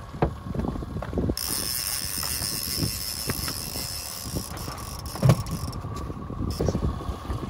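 A fishing reel being cranked hard against a hooked king salmon, its mechanical whir over a low rumble of wind and boat, with small knocks and one louder knock about five seconds in.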